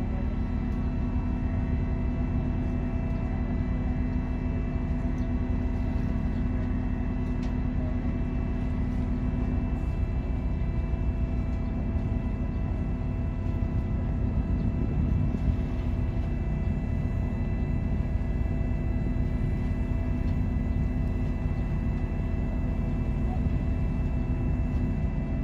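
Ship's engine running steadily: a low rumble with a constant multi-tone hum.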